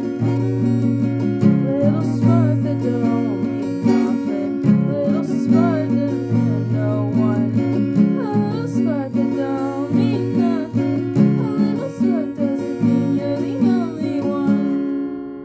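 Acoustic guitar strummed in a steady rhythm of chords, the playing coming to an end in the final moment.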